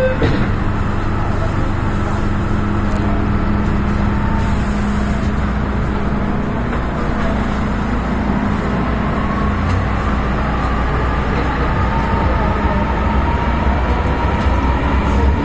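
MTR M-Train electric multiple unit departing a station, heard from inside the car. A thud as the doors shut right at the start, then a steady hum. From about ten seconds in a faint rising whine and a growing low rumble come in as the train picks up speed.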